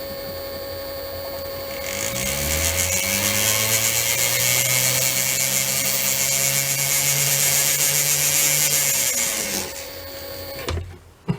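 Small lathe motor running while a steel plug for the escape wheel's new pivot is cut down in diameter. About two seconds in, a second motor tone rises and a loud hissing cutting noise joins it. The cutting stops near the end, then the motor runs down and stops.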